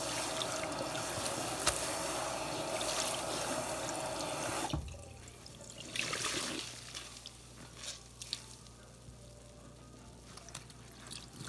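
Water from a sink sprayer running onto soaked foam sponges, a steady hiss that drops off sharply about halfway through. A short burst of water follows as a sponge is squeezed under the stream, then softer wet sounds with scattered drips as the sponge is pressed down in the water in the sink.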